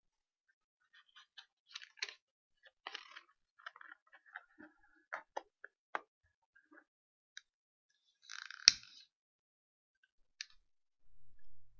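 Scattered faint clicks and crackles at irregular intervals, with a brief rustle and one sharper click a little under nine seconds in.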